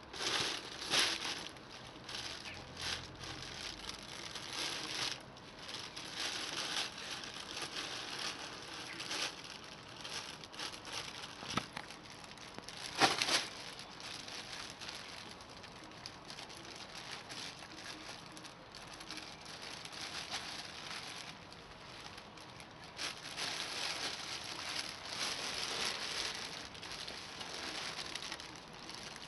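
Fabric pet play tunnel rustling and crinkling in irregular bursts as a dog noses and tugs at it and a cat scrambles through it, with one louder burst about halfway through.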